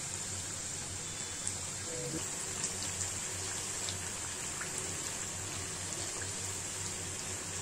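Oil sizzling steadily in a kadai as mathri-style flour crackers deep-fry, the oil running a little too hot, with a few scattered light ticks.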